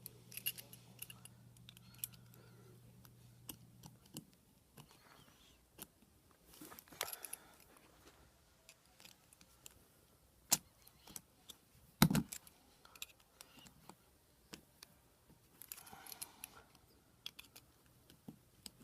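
Metal door-handle parts being handled and pried apart: scattered small clicks and clinks, with one louder knock about twelve seconds in. A low steady hum stops about four seconds in.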